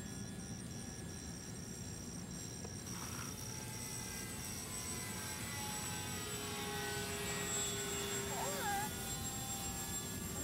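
Radio-controlled PBY Catalina model plane's motors droning as it flies past in the air, growing louder and shifting in pitch as it comes closest in the second half, then easing off near the end.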